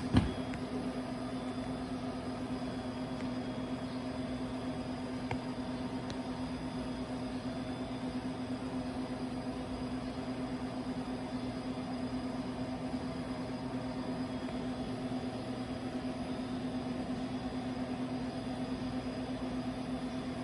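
TIG welding arc on carbon steel pipe, buzzing steadily during the root (backing) pass, with a sharp click at the very start.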